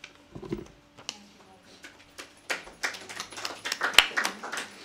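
A small audience clapping, with individual claps heard one by one, sparse at first and growing denser about halfway through.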